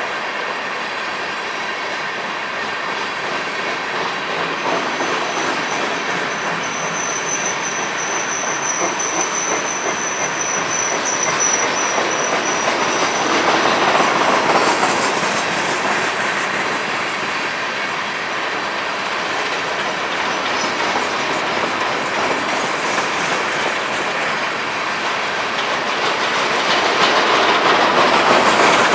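Empty BNSF coal train's hopper cars rolling past, a steady rush of steel wheels on the rails that swells twice. A thin, high wheel squeal holds from about five seconds in to about thirteen seconds.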